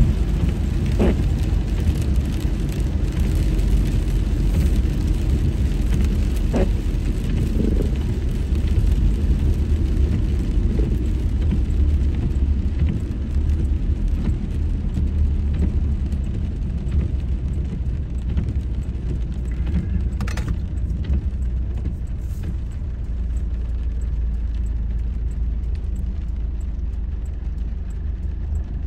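Car cabin noise while driving in the rain: a steady low rumble of engine and tyres on the wet road, with a few faint clicks. It eases off somewhat in the second half.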